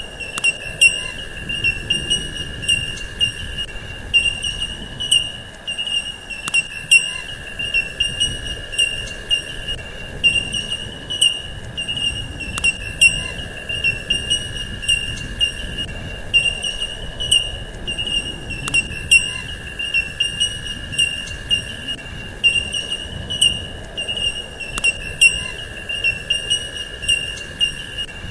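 A steady, high-pitched insect trill, cricket-like, with short sharp chirps about every half second. The same few seconds of recording repeat about every six seconds, each repeat marked by a louder click.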